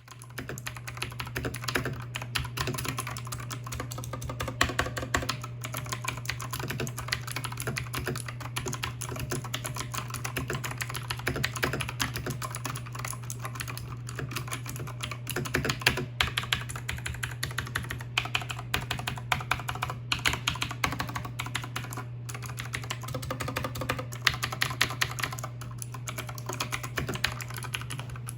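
Fast, continuous typing on a Redragon K554 Mitra mechanical keyboard with clicky Outemu Blue switches: a dense stream of sharp, loud clicks over a steady low hum.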